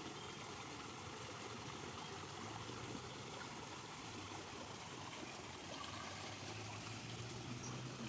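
Swollen, muddy floodwater flowing fast along a stream channel: a steady, even rush of water.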